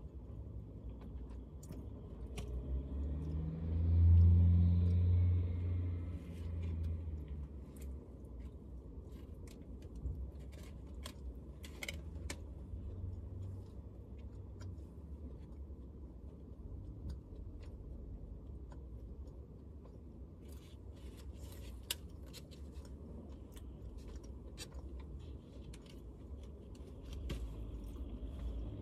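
Steady low rumble of a car idling, heard from inside the cabin, with scattered light clicks and crackles of a plastic food container being handled while eating. A louder low hum swells for a couple of seconds about four seconds in.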